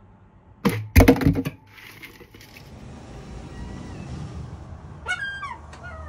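A sharp clatter of hard objects about a second in, then a steady hiss, and near the end a few short calls falling in pitch from a herring gull.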